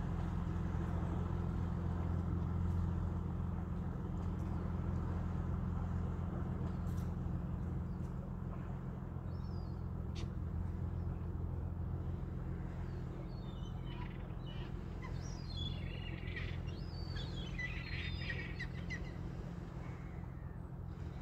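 Fishing cutter's diesel engine running with a steady low drone that fades slowly as the boat moves away. Birds chirp several times in the second half.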